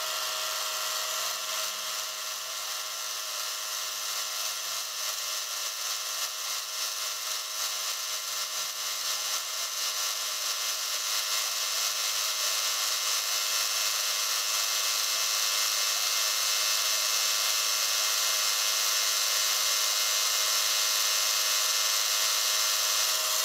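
Milling machine spindle spinning a single-point fly cutter while it thread mills a slender part: a steady high machine whine with a cutting hiss, growing slowly louder over the cut.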